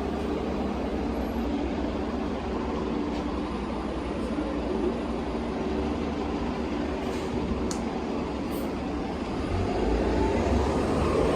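A train running by with a steady rumble and hum, growing louder near the end.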